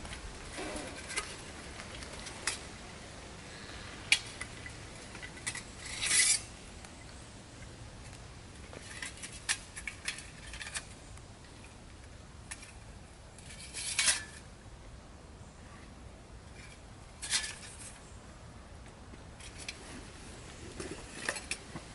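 Camping gear being unpacked by hand: irregular clinks and knocks of a metal cooking pot set and a steel flask being handled and set down, amid rustling of a bag, with a few louder scrapes.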